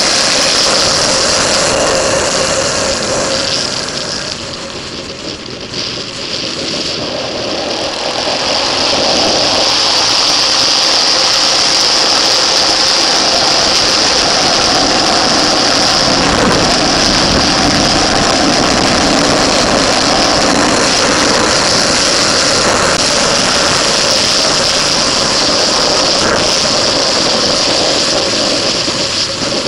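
Motorcycle engine running at track speed under wind rush on the microphone. It eases off about four seconds in, then picks up again and holds steady from about eight seconds on.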